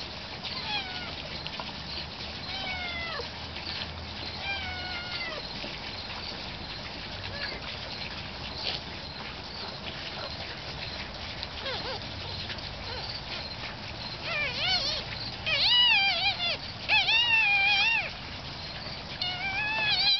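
One-week-old cleft-palate puppy crying in high-pitched, mewing squeals: a few falling cries in the first five seconds, then a louder run of arching cries near the end.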